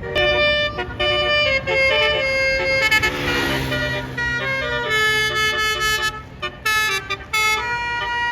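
A tour bus's basuri horn, a multi-note electric musical horn, playing a tune in short stepped notes with brief breaks. About three seconds in there is a short hiss with a falling tone under it.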